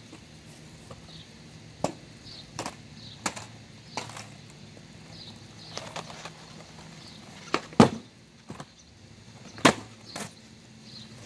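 Skateboard on a concrete sidewalk: a series of sharp, irregular clacks and knocks as the board's tail and wheels strike the pavement, the loudest about eight seconds in.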